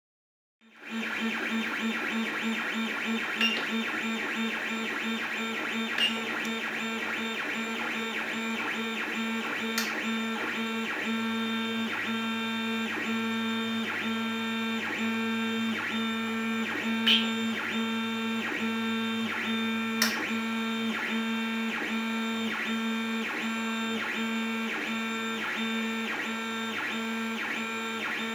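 MakerFarm i3v 3D printer printing: its stepper motors whine in stacked tones that shift pattern every fraction of a second as the axes move, starting just under a second in. A few sharp clicks stand out above it.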